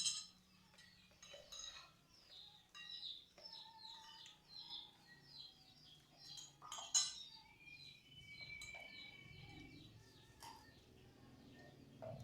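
A spoon clinks against a plate a few times during a meal, most sharply near the start and about seven seconds in. Faint, quick, high chirping runs underneath.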